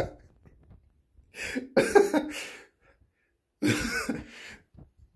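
A man laughing in two breathy, cough-like bursts, each about a second long, with quiet between them.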